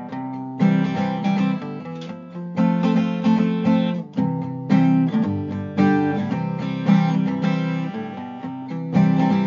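Background music: strummed acoustic guitar chords, a fresh strum about once a second.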